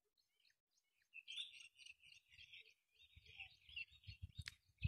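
Faint birds chirping rapidly, starting about a second in, with a low rumble underneath in the second half and a single click near the end.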